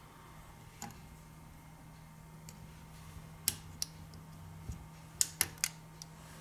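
Scattered small, sharp clicks and taps of hard objects being handled, one near the start and a quick cluster of three near the end, over a faint steady hum.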